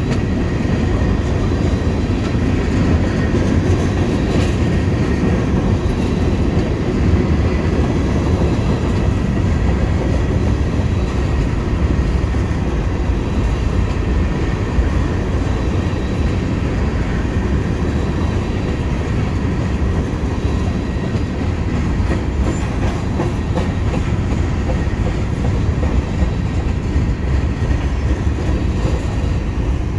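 Freight train's covered hopper cars rolling past: a steady rumble of steel wheels on the rails, with occasional clicks as the wheels cross rail joints.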